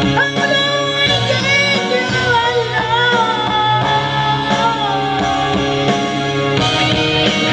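A man singing a rock power ballad into a handheld microphone over a loud backing track. His voice drops out about two-thirds of the way through, leaving the backing band playing.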